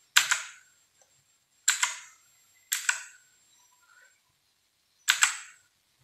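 Four sharp key clicks from a Rexus Legionare MX5.2 mechanical keyboard, spaced one to two and a half seconds apart, as FN key combinations are pressed to switch the RGB lighting mode.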